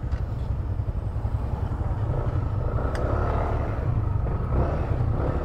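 Yamaha scooter riding along with its engine running, heard as a steady low rumble mixed with wind rushing over a handlebar-mounted microphone.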